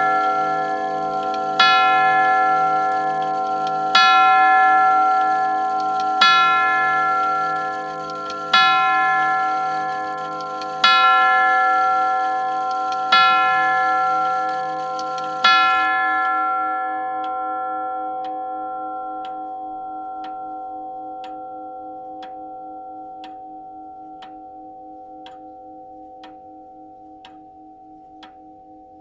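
Grandfather clock's chime tube striking the hour: the same note is struck seven times, about every two seconds, each stroke ringing on. After the last stroke the ringing slowly dies away and the clock's steady tick-tock comes through.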